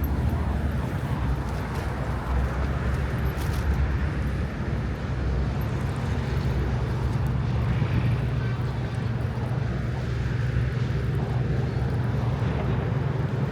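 Steady low rumble of vehicle traffic crossing the bridge, heard as continuous street ambience with a few faint clicks.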